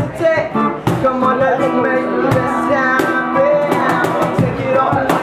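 Reggae song played live by a small acoustic band: a man singing over strummed electric and acoustic guitars, with regular hand-struck cajón beats.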